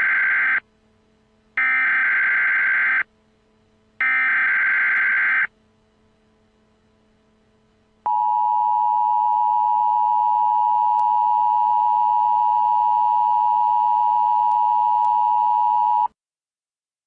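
Emergency Alert System tones: the end of one SAME digital header burst and two more identical warbling data bursts, each about a second and a half, then after a short gap the steady two-tone EAS attention signal (853 and 960 Hz) held for about eight seconds and cut off suddenly.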